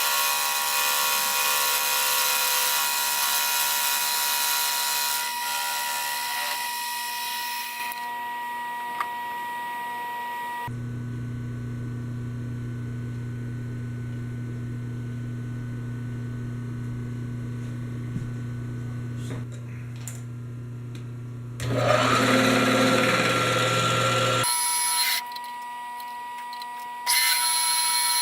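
Machine-shop power tools running in a string of separate spells that start and stop abruptly. First comes a loud, hissing cut with a steady whine, then a low steady motor hum, then louder tool noise again about 22 seconds in and near the end.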